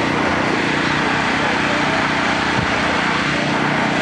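A small engine running steadily, a constant drone with a low hum under it.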